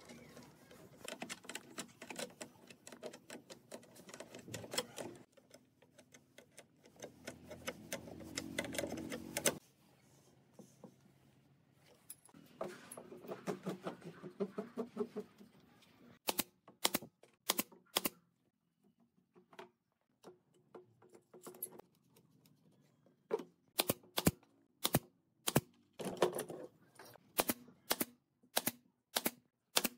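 DCA pneumatic brad nailer driving nails into a pine chair frame: sharp shots, four in quick succession past the middle, then a steady run of about two a second near the end. Before that, scraping and knocking of wood and a bar clamp being handled.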